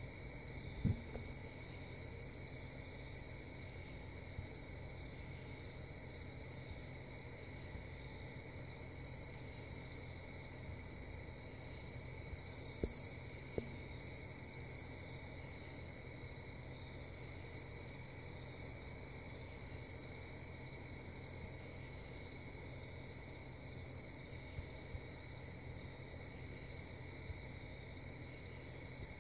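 Crickets trilling in a steady night chorus over a low rumble. A single sharp knock comes about a second in, and a brief rustle with a couple of clicks near the middle.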